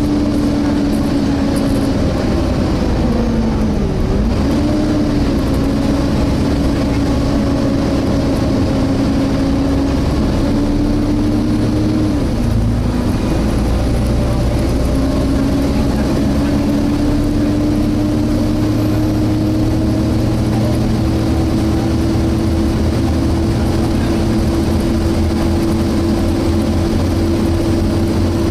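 Volvo B7TL double-decker bus's hydraulically driven cooling fan whining like a vacuum cleaner, heard from inside the bus over engine and road rumble. The whine dips in pitch twice, then climbs slowly through the second half.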